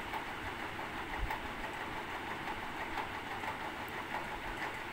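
Potato tikkis shallow-frying in oil in a nonstick pan on a low flame: a steady, even sizzle with fine crackles.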